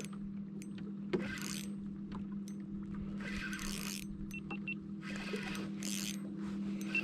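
Boat motor running with a steady low hum, overlaid by several short hissing bursts and scattered sharp clicks.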